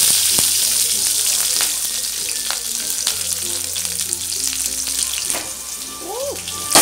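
Shallots and curry leaves sizzling in hot oil in an aluminium kadai, a steady hiss that slowly eases. Right at the end, a sharp knock as the pan is knocked askew on the gas burner.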